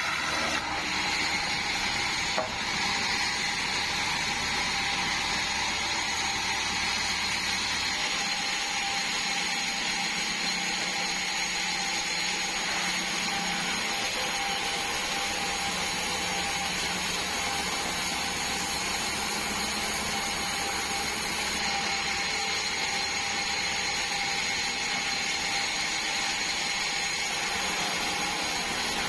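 Band sawmill running steadily, its blade sawing through a large meranti log, with a constant whine and no pauses.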